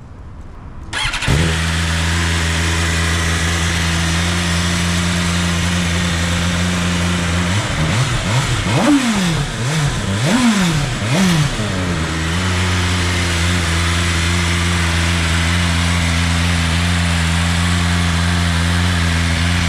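A BMW superbike's inline-four engine starts about a second in and idles steadily, then is revved in several quick blips that rise and fall before settling back to a steady idle.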